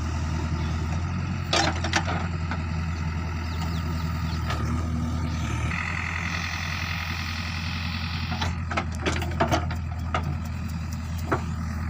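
JCB backhoe loader's diesel engine running steadily under work, with sharp knocks now and then, a pair early on and a cluster near the end. A high whine joins in for about two seconds past the middle.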